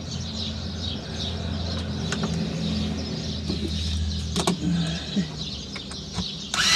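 Cordless drill running steadily as it drives a screw into a small metal bracket, with a few short clicks, getting louder and harsher for about the last second.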